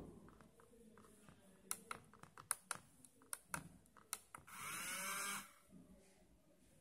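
Keypad push-button switches clicking in a quick run as a password is entered, then a small geared DC motor whirring for about a second with a rising whine as it drives the lock shut after the correct code.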